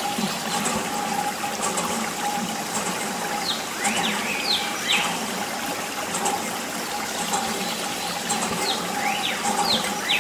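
Water trickling and splashing from a thin plastic tube onto sand and toy vehicles, over the steady hum of a small water pump.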